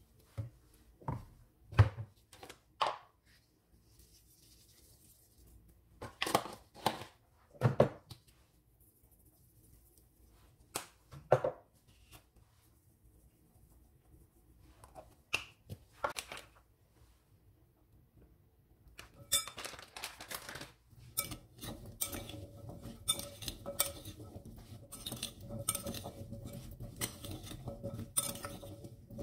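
Scattered clinks and knocks of small dishes against a glass mixing bowl as seasonings go in. About two-thirds of the way through, a metal spoon starts stirring oiled pumpkin chunks in the glass bowl: continuous scraping and clinking against the glass.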